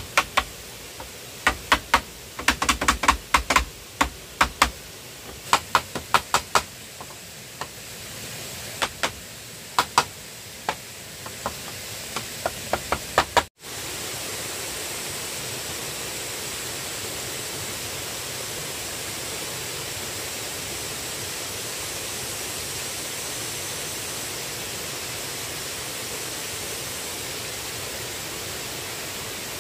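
Irregular sharp knocks, some single and some in quick runs of several, for about the first half. Then an abrupt cut to a steady rushing noise.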